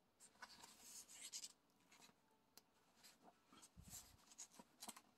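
Faint rustling and soft scraping of paper as the pages of a coloring book are handled and turned, in short spells.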